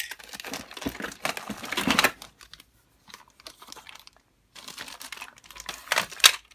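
Thin clear plastic bags crinkling as bagged Plarail toy train cars are handled. The crinkling comes in two spells with a quiet pause of about two seconds between them, and the sharpest crackles come near the end.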